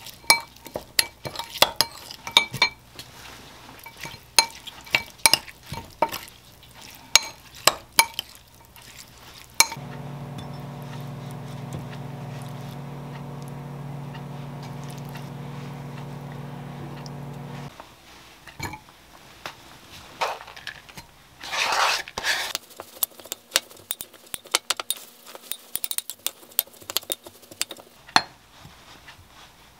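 Metal spoon clinking and scraping against a glass mixing bowl while seasoned cockles and vegetables are stirred, then scooped out onto a ceramic plate. About ten seconds in, a steady machine hum starts, runs for about eight seconds and cuts off. A short louder rush of noise comes about two-thirds of the way through.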